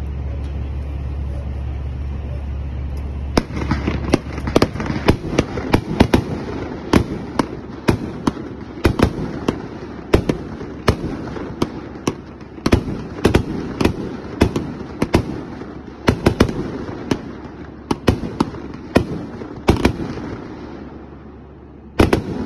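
A 56-shot consumer firework cake, King and Queen, firing shot after shot about three seconds in: sharp bangs of aerial shells launching and bursting, roughly one or two a second, with a short pause near the end. Steady low background rumble before the first shot.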